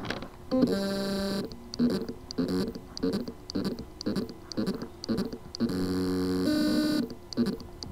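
Western Digital Caviar Black 2 TB hard drive (WD2002FAEX) with loose spindle-motor contacts on its circuit board, its motor spinning but unable to reach full speed. A buzzing tone holds for about a second, then breaks into short pulses about three a second, then holds again for over a second near the end before two more pulses.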